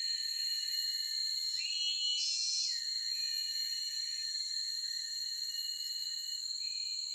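Forest insects shrilling steadily at several high pitches, with one bird call about a second long, rising and then held, about two seconds in.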